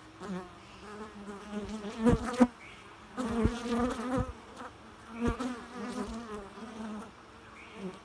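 Honey bees buzzing around a hive entrance, the buzz swelling and fading as individual bees fly close past and away several times.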